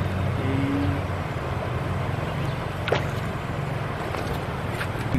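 Shallow river water running over rocks close to the microphone, a steady rush with a low rumble. A single sharp click about three seconds in.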